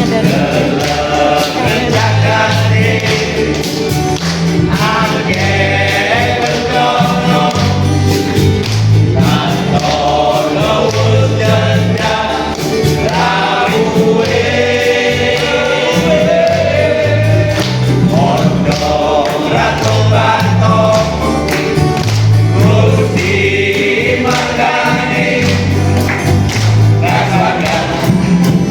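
Choir singing a Christian song with band accompaniment: a bass line and a steady beat under the voices.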